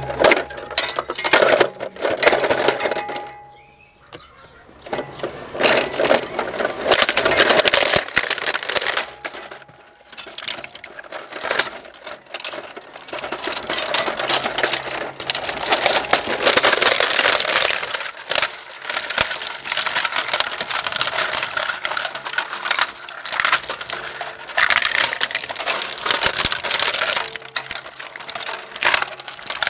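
Twin-shaft shredder chewing up a plastic toy fire truck: continuous cracking and crunching of hard plastic breaking between the rotating cutters, over the low hum of the machine. The crunching eases off briefly twice, a few seconds in and about ten seconds in.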